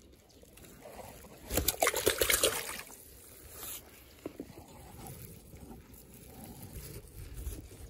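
Water sloshing and dripping as a mesh keep net holding a few small fish is moved in and out of the lake water by hand, with the loudest splashing about two seconds in and a few smaller splashes after.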